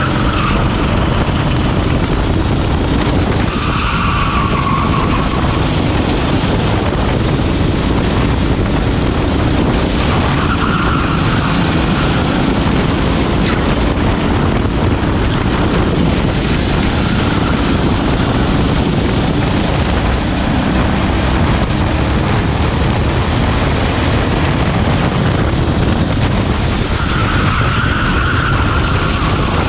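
Rental go-kart engine running hard at racing speed, heard onboard, with the tyres squealing briefly through corners several times.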